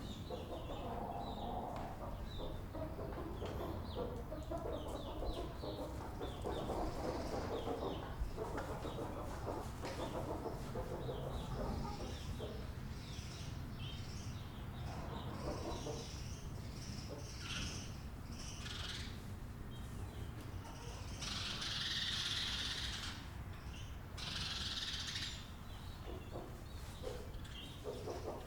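Farmyard ambience: many short bird chirps and fowl calls over a low steady rumble. Two longer, louder calls come about three-quarters of the way through.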